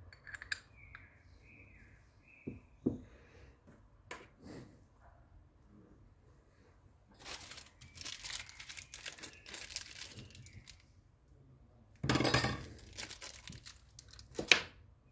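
Metal and plastic parts of a dismantled Hitachi G12SR3 angle grinder being handled and set down: scattered clicks and knocks, with two spells of rustling, scraping noise in the middle and a sharp click near the end.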